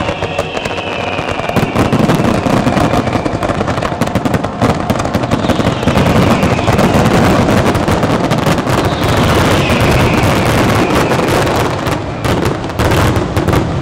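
Finale barrage of a large aerial fireworks display: many shells and comets bursting in rapid, overlapping bangs without a break.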